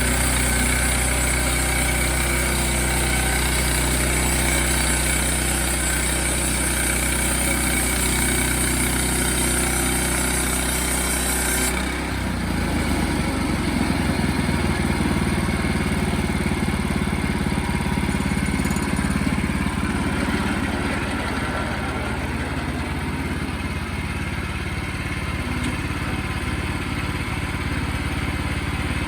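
Sawmill engine running steadily under a high cutting hiss; about twelve seconds in, the hiss cuts off and the engine note changes, as the cut ends.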